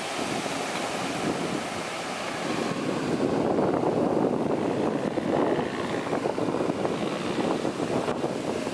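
Heavy earthmoving machinery running, a dense rumbling noise mixed with wind on the microphone, growing louder about three seconds in.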